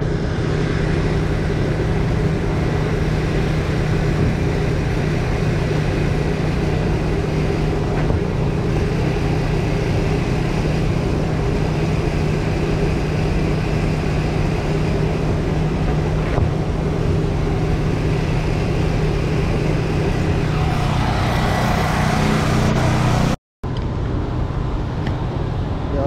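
Steady hum of a running engine or motor, unchanging in pitch, with a little more rushing noise for a couple of seconds near the end.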